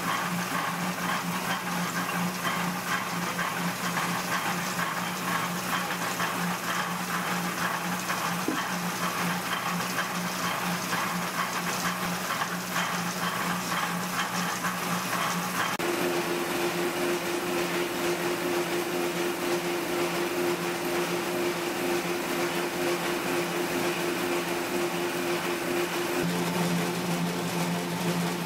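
Electric dough mixer running steadily as it works flour and liquid into crumbly noodle dough. Its hum changes pitch about halfway through and again near the end.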